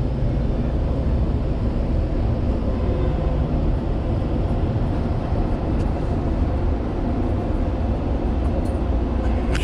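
Steady rumble and rush of a passenger train in motion, heard from inside the car.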